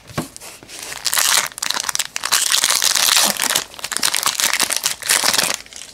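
Crinkly plastic wrapper of a football trading card pack rustling loudly as hands tear it open, starting about a second in.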